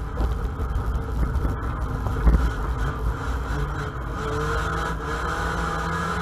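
A racing Ford Mondeo's engine running under way, heard from inside the cabin as a steady low drone with rumbling and jolts. A heavy thump comes a little over two seconds in.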